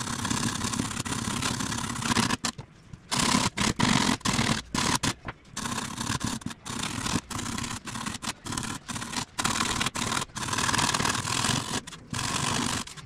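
Coarse wood rasp scraping across blue extruded polystyrene foam in repeated, irregular strokes, rough-shaping a cowl plug down to a marked line.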